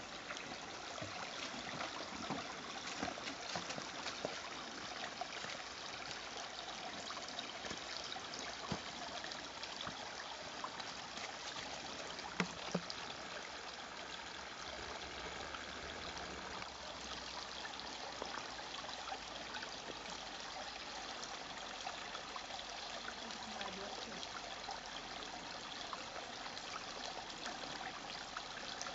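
Small forest brook trickling and babbling steadily, with a few brief knocks, a couple of them stronger around the middle.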